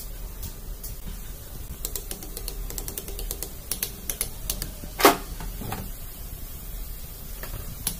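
Metal hand tools clicking, tapping and scraping against an engine block while a seal housing is pried at, with one louder metal knock about five seconds in.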